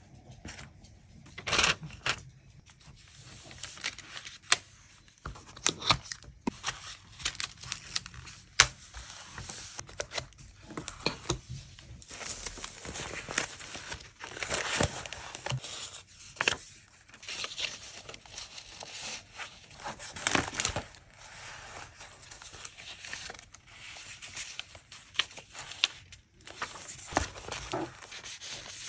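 Paper being handled up close: sheets and journal pages rustling and crinkling as they are lifted, flipped and smoothed, with irregular sharp taps and clicks throughout.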